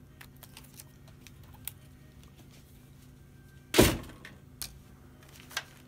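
Small clicks and taps of hands working a laptop's LCD cable and screen panel, then one loud thump about four seconds in as the broken LCD panel is lifted away and set down, followed by two lighter knocks.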